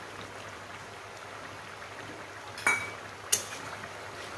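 Two sharp metal clinks, about two and a half and three and a half seconds in, the first with a brief ringing, as a metal spoon or bowl knocks against the aluminium wok. Under them is a steady faint hiss.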